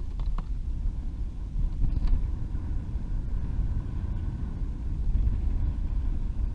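Wind buffeting an action camera's microphone: a steady, fluttering low rumble.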